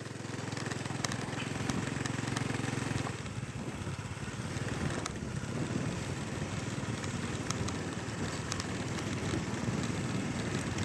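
Small motorcycle engine running steadily while riding over a rough, rutted dirt road, with scattered rattles and clicks from the bumps.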